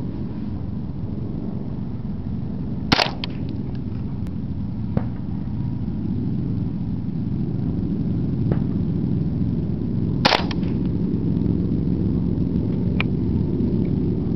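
Two rifle shots about seven seconds apart, each a single sharp crack, with three much fainter cracks between and after them. A steady low rumble of wind on the microphone runs underneath.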